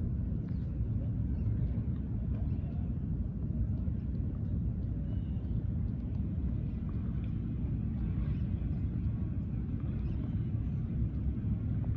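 Steady low rumble of distant city traffic, with faint, short, scattered high chirps over it.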